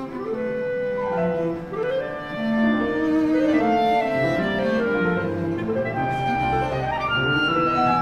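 Chamber music for clarinet, cello and piano, a melodic line of held notes moving from pitch to pitch over the other instruments.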